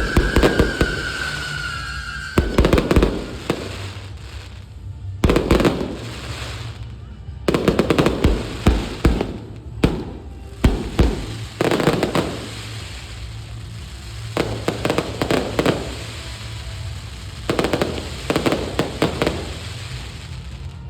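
Aerial fireworks shells bursting in volleys of rapid bangs and crackle, about eight clusters a couple of seconds apart.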